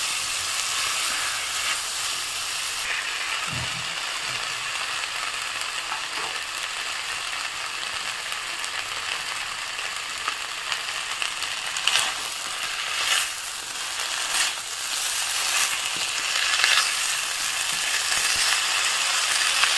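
Green banana and potato pieces sizzling steadily in oil with ground spices in an iron kadai as the masala is fried down. A silicone spatula scrapes and stirs against the pan several times in the second half.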